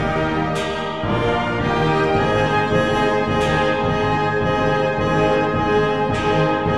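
Orchestral background music led by brass, with steady held notes.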